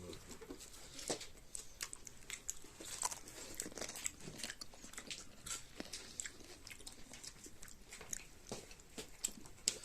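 Close-miked eating of chicken: irregular crunchy bites and chewing, many small clicks a few times a second.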